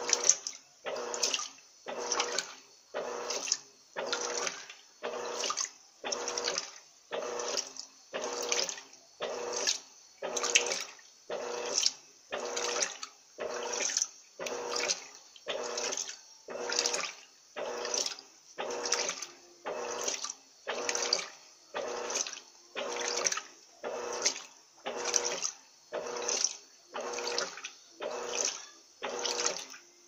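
Electrolux LT12B 12 kg top-loading washing machine agitating a load of bedsheets in water: the agitator churns back and forth with a swish of sloshing water about once a second, a steady hum sounding under each stroke.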